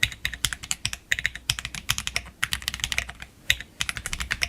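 Fast typing on a freshly built custom mechanical keyboard: an Akko x Monsgeek M1 with Akko CS Silver linear switches, the keys clacking in quick runs with a couple of brief pauses.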